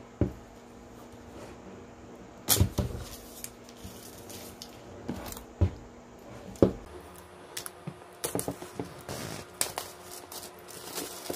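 Apple iPad Pro cardboard box and its plastic film being handled on a desk: a few sharp taps and knocks, then a quicker run of small clicks and crinkles in the second half.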